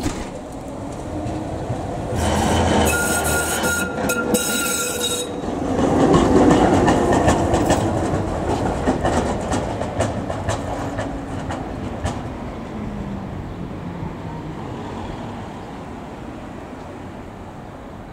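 GT4 articulated tram passing and pulling away on street track. A steady high-pitched wheel squeal lasts about three seconds. Then the rumble and rattle of the wheels over the rails peaks about six seconds in and fades as the tram recedes, with a falling motor whine.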